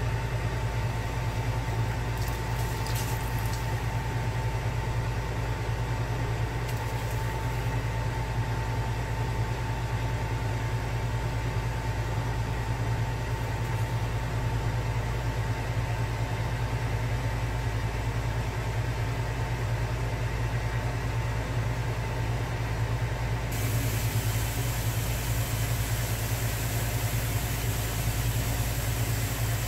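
A steady low mechanical hum with a thin steady whine above it. A few faint clicks come early, and a brighter hiss joins in for the last six seconds or so.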